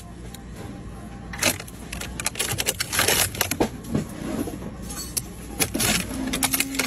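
Crinkly plastic wrappers on packaged ice creams rustling and crackling in irregular bursts as a hand rummages through them and pulls packs out.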